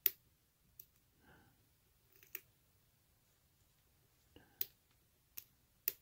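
Faint, isolated sharp clicks from a lock pick working the pins of a Brinks long-shackle padlock, about six in all, the loudest right at the start. The pick is probing and setting the pin tumblers one by one under light tension.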